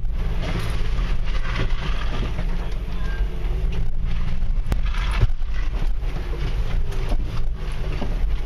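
Steady low rumble of a 4x4's engine and drivetrain heard from inside the cab as it crawls over a rough dirt trail, with occasional knocks and rattles from the bumps, one clear knock about halfway through.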